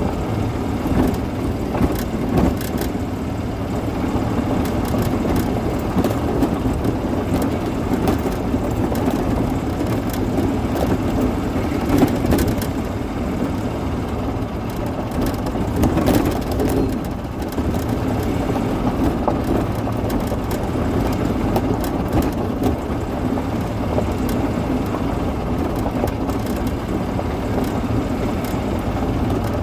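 Yamaha golf cart driving steadily along a gravel lane: its drivetrain runs with a steady drone, with tyres on gravel and scattered clicks and rattles.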